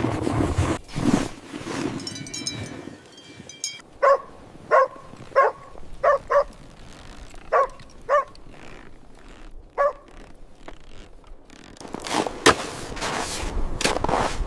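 A dog barking: about eight short, sharp barks in an uneven run, sometimes in pairs. Near the end comes a stretch of noisy crunching and scraping.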